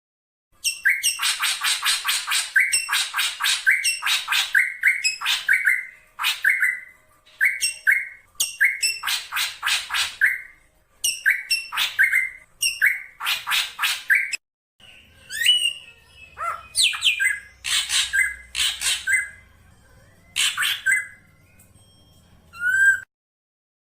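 Black drongo calling: rapid strings of harsh, squawking notes, several a second, in phrases of one to two seconds with short gaps. About fourteen seconds in the recording cuts, and the phrases come sparser over a faint low hum, with a short whistled note near the end. The uploader presents it as a female calling her mate.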